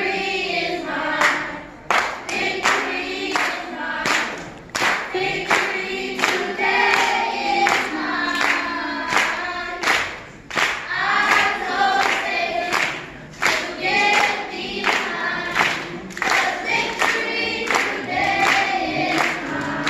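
Children's gospel choir singing in phrases, with steady handclaps keeping the beat.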